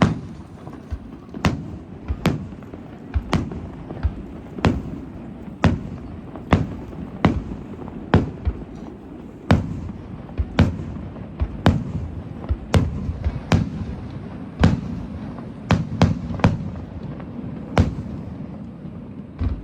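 Aerial fireworks shells bursting in quick succession, about twenty sharp bangs at uneven spacing, roughly one a second, over a continuous low rumble.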